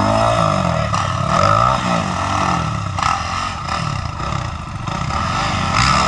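Dirt bike engine revved in repeated bursts, its pitch rising and falling several times, as the bike is ridden and pushed up over a log.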